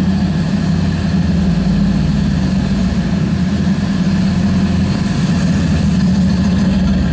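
The 1931 Ford Model A street rod's 302 cubic-inch V8, breathing through Hooker headers and dual exhaust, running at a low, steady speed as the car creeps past. The engine note holds even throughout, with a fast, steady exhaust pulse underneath.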